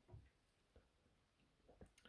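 Near silence, with two faint soft knocks, one just after the start and one near the end, as a small plastic toy figure is picked up off a cloth.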